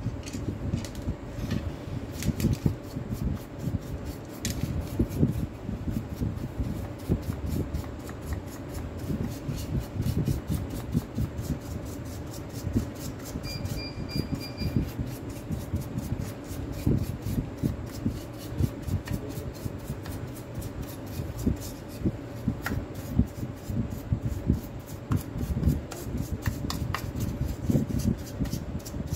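Wire brush scrubbing the plastic housing halves of a Makita DDF446 cordless drill: an irregular, continuous scratchy rubbing, with a steady faint hum underneath.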